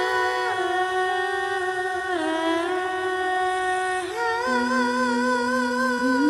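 Background score music: long held notes that step and slide slowly downward, then a wavering note over a low held tone from about halfway through.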